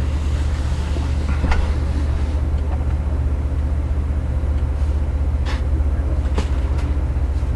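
Steady low drone of an idling engine with an even pulse, with a few faint clicks.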